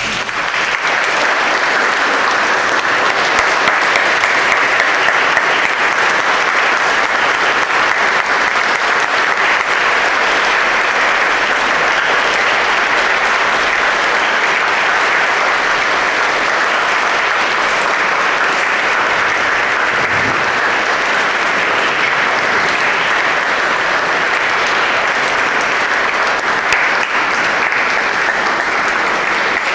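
Audience applauding, a dense, steady clapping from a large crowd.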